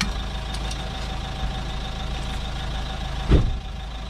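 Steady low mechanical hum, and about three seconds in a single heavy clunk as the seized handbrake mechanism comes loose.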